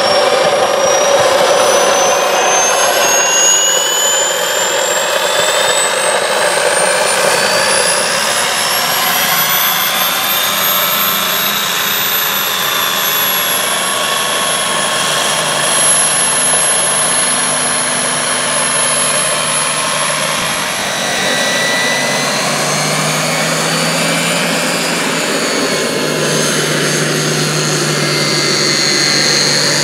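Model turbine jet engine whining, its pitch climbing steadily for about ten seconds and then holding high. A lower engine drone joins in during the last third.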